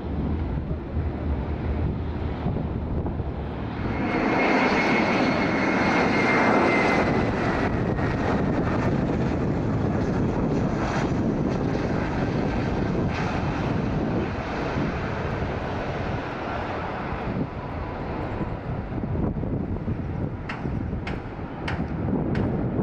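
Jet airliner engines running, with a high whining tone that falls slowly in pitch, suddenly louder from about four seconds in. Before that, wind buffets the microphone. A few sharp clicks come near the end.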